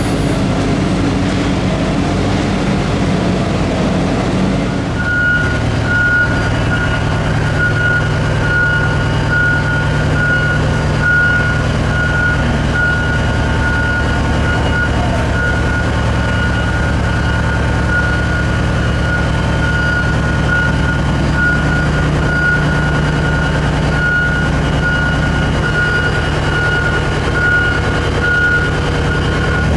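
Komatsu Innovative Autonomous Haulage Vehicle, a giant cabless mining dump truck, running and moving slowly with a steady low hum. About five seconds in, its warning beeper starts a steady series of evenly spaced high beeps.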